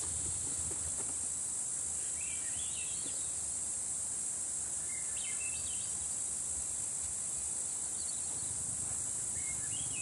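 A steady, high-pitched insect chorus shrilling without a break. A few faint short chirps come through at intervals.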